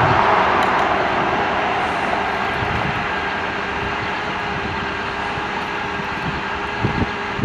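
Utility truck's diesel engine running steadily, a broad rumble that eases off a little over the first few seconds. A couple of light knocks come near the end.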